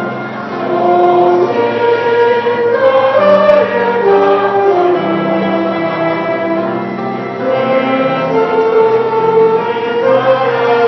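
Church choir singing a hymn together, holding each note for a second or two.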